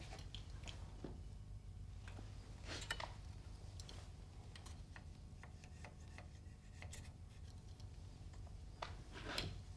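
Knife blade scraping and cutting along the edge of a steel gauge plate as the rubber seals of an engine's main bearing cap are trimmed flush. Faint, with small scrapes and clicks and two louder scraping strokes, about three seconds in and near the end, over a steady low hum.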